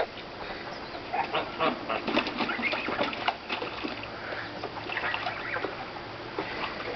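Domestic geese making short honks and chatter, among many quick clicks and rustles.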